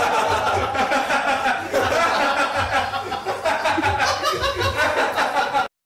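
Laughter, steady and unbroken, cut off abruptly near the end.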